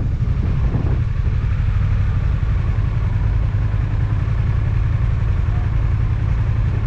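Motorcycle engine idling, a steady low rumble.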